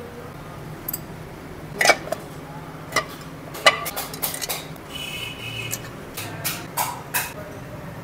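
Metal hand tools, an open-end spanner among them, clinking and tapping against a motorcycle engine's tappet covers as they are fitted: a string of sharp metallic clicks, the loudest about two and almost four seconds in, over a steady low hum.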